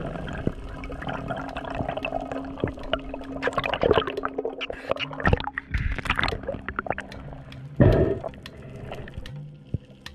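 Water splashing and gurgling around a freediver's camera as he breaks the surface and dives back down. The water sounds come as irregular crackles, with a loud splash a little before the eight-second mark.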